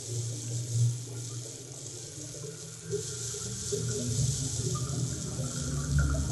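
Water heard underwater: a steady rushing hiss with an irregular low gurgling rumble, swelling briefly about a second in and again near three seconds.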